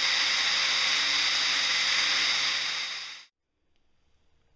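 Power drill with an 11/64-inch bit drilling off the head of a 3/16-inch pop rivet on a mast spreader bracket. It runs steadily, then winds down and stops about three seconds in.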